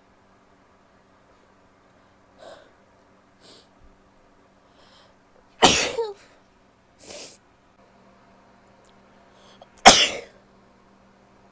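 A woman sneezing twice, loud and sudden, about four seconds apart, with short catching breaths before them.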